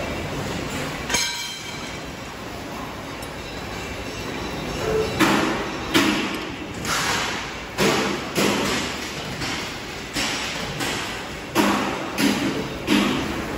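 Irregular metal knocks and clanks from work on an engine being mounted to a thresher's steel frame: one knock about a second in, then a run of about nine sharp clanks, each ringing briefly, spaced half a second to a second apart.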